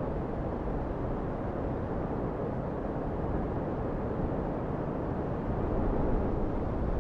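Wind buffeting the microphone: a steady low rumble that swells slightly near the end.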